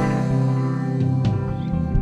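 Live band music: a held chord ringing over a steady bass note, right after a loud drum hit.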